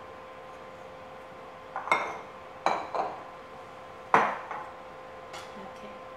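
Kitchen utensils clinking and knocking against dishes, about half a dozen sharp strikes, loudest about four seconds in.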